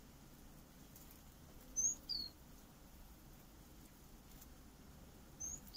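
A small bird chirping: a short high two-note call, the second note sliding down, heard about two seconds in and again near the end, over faint room background.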